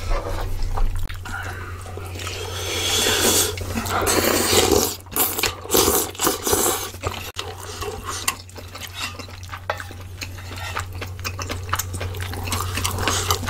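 Close-up eating sounds: wet chewing and slurping of kimchi stew and rice, with wooden spoons and chopsticks scraping and clicking against a metal pan and a glass bowl. A steady low hum runs underneath.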